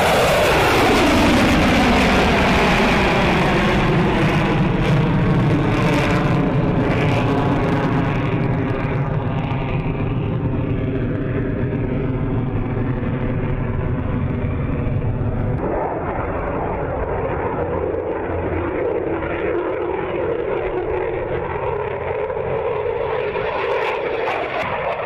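F-22 Raptor's jet engines running loud in a flypast, the pitch sweeping down as the jet passes. About two-thirds of the way through, the sound changes abruptly to a steadier, lower jet drone.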